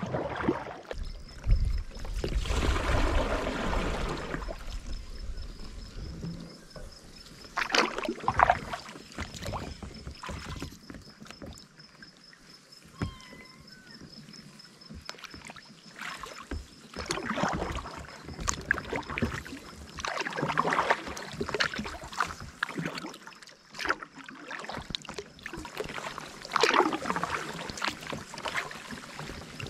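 Kayak paddle strokes in lake water: a splash and swish of the blade every few seconds, with quieter water sounds between them.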